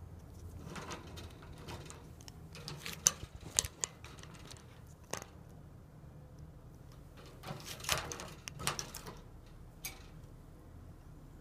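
Sharp clicks and taps from an African grey parrot moving about its wire cage, coming in scattered clusters with the loudest a little past three seconds in, over a low steady hum.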